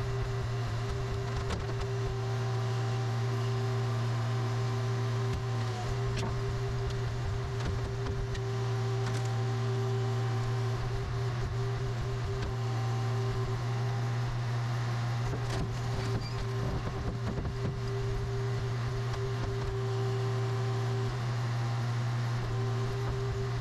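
Car crusher's engine and hydraulic pump running with a steady low drone, with a few sharp cracks as the load is pressed.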